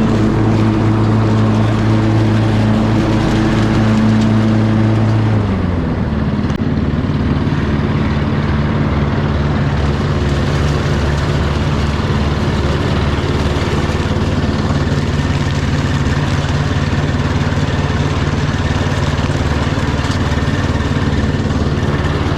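Cub Cadet riding lawn mower engine running steadily; about five seconds in its pitch drops and it carries on at a lower speed with a regular pulsing beat.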